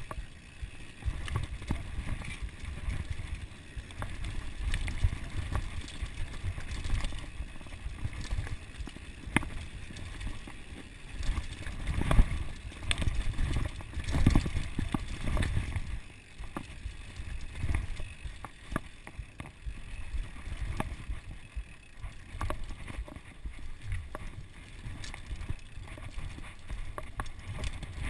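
Ellsworth Evolve mountain bike riding fast down a rough dirt singletrack: a constant low rumble of tyres over dirt, roots and rocks, with frequent clattering knocks and rattles from the bike. The knocking is heaviest a little before the middle.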